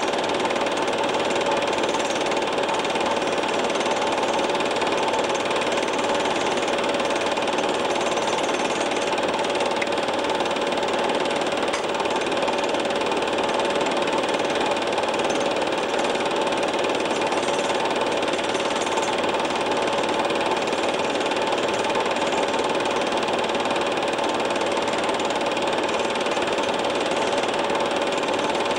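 Film projector running: a steady mechanical whirr with a fast, fine clatter and two constant hum tones, unchanging in level.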